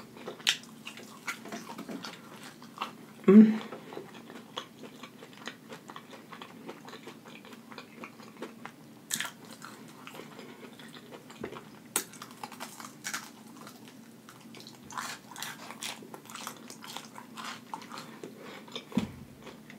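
Close-miked mouth sounds of a person biting and chewing breaded fried chicken wings: wet chewing with many small crackles and clicks. A short louder vocal sound comes about three and a half seconds in.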